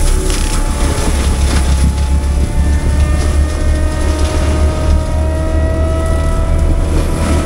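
Heavy diesel equipment engine running loud and steady, with a deep rumble and a whine that slowly rises in pitch.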